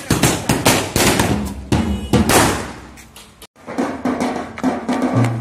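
A string of firecrackers going off in a rapid, irregular run of sharp bangs that thins out and stops about three seconds in. After a short break, drums start being beaten.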